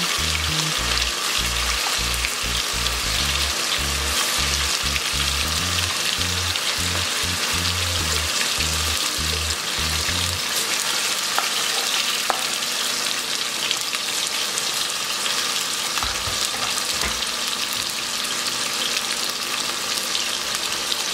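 Chicken pieces deep-frying in hot oil in a large aluminium pot, a steady sizzle and crackle, with the flame at medium to crisp them without burning. A low rhythmic thumping runs underneath through the first half and stops about halfway.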